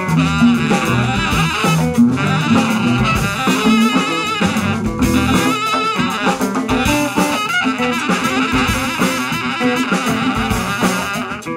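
Live jazz group playing: a saxophone line with bending pitch over upright bass, archtop guitar and drum kit with hand percussion.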